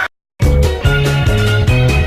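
A brief cut to silence, then loud background music with a heavy bass line and a steady drum beat.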